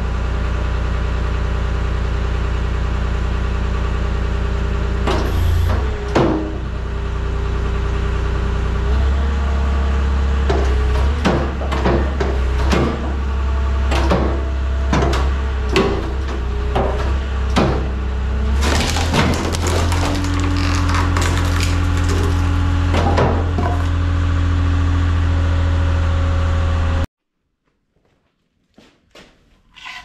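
Skid steer engine running steadily to drive the Halverson HWP 120 firewood processor's hydraulics, its note shifting as functions engage, with repeated knocks and cracks as a log is pushed through and split. The engine shuts off suddenly near the end.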